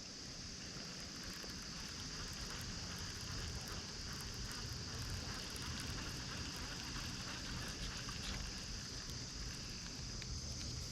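Faint outdoor ambience: a steady high insect drone, with a low rumble of wind on the microphone.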